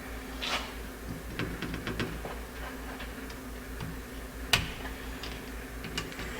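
Small metallic clicks and scrapes of a snap ring being worked onto the choke pull-off shaft of a single-barrel carburetor, with one sharper click about four and a half seconds in. A steady low hum runs underneath.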